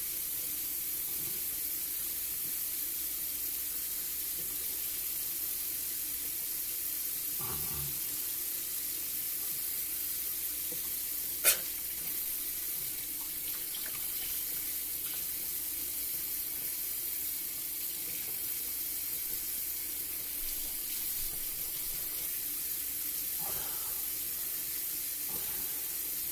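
Kitchen tap running steadily into a metal sink while raw chicken gizzards are rinsed and trimmed by hand under the stream. A single sharp click about eleven seconds in, and a couple of soft knocks.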